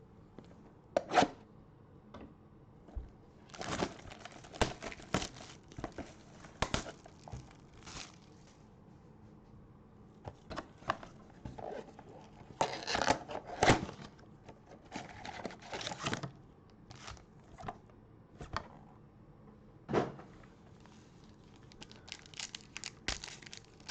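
Plastic wrapping on trading card packaging being torn open and crinkled: short, irregular rustles and tears with quiet gaps between them.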